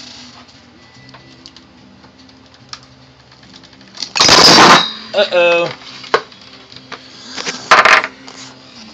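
The camera coming loose from its double-sided-tape mount: a loud knock and scrape about four seconds in, after faint scattered ticks of work on the desk. Brief exclamations from a man's voice follow, with another clatter near the end.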